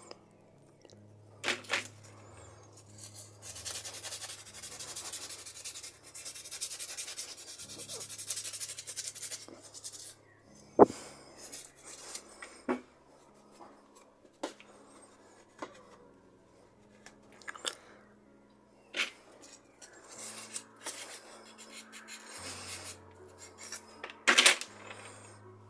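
Wet-and-dry abrasive paper scrubbing the metal parts of FELCO 7 secateurs clean of grime, a few seconds of steady scratchy rubbing, followed by scattered sharp clicks and clinks of the metal parts being handled and set down.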